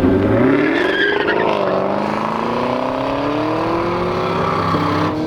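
Drag racing car accelerating hard down the strip, its engine note climbing steadily in pitch, with a break at a gear change about a second and a half in and another shift near the end.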